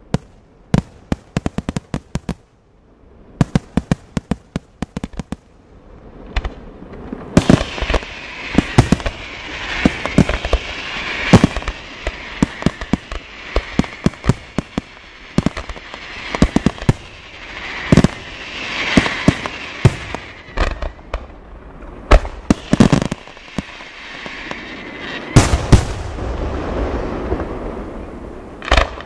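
Aerial fireworks display: scattered sharp cracks for the first several seconds, then from about seven seconds in a dense, continuous wash of shell bursts and crackling, punctuated by many loud bangs.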